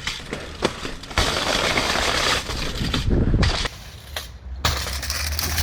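Bare mountain-bike rear rim, ridden with no tire, grinding and rattling over the ground. The loud scraping starts about a second in, eases off briefly near four seconds and then picks up again.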